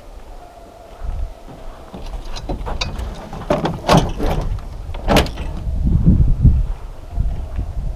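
A vehicle driving on a sandy dirt road: a steady low rumble, with several sharp knocks and rattles in the middle.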